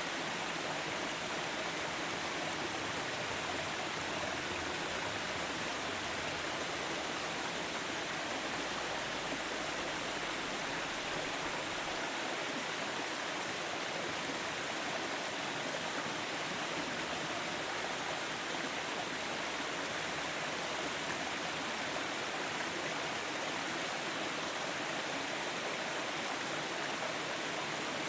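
Forest stream running steadily, a continuous rush of flowing water.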